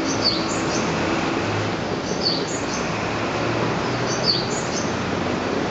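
Bird-like chirps in a short phrase that repeats about every two seconds, over a steady hum of platform noise: the recorded birdsong guide chime played at Japanese railway stations to lead visually impaired passengers to the stairs.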